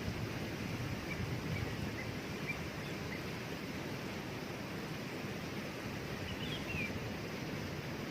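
Waterfall rushing steadily, with a few faint high bird chirps scattered through the first few seconds and a short run of bird notes about six and a half seconds in.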